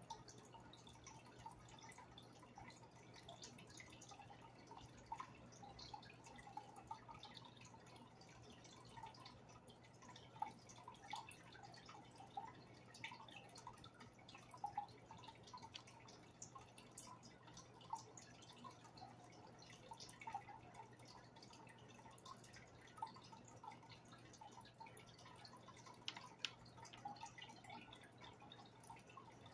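Faint aquarium water sounds: irregular small plinks and bubbling over a low steady hum.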